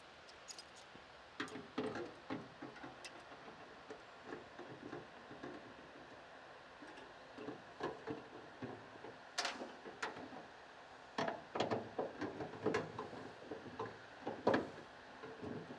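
Scattered light clicks, scrapes and knocks of hand tools and a mild-steel fire-extinguisher bracket being unbolted and shifted lower on a ute tub's wall. The sharpest knocks come about halfway through and near the end.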